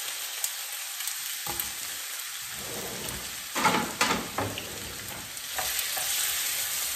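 Straw-cut potatoes sizzling in hot oil in a frying pan, just added, with a steady high hiss. A few louder knocks and scrapes in the pan come about halfway through.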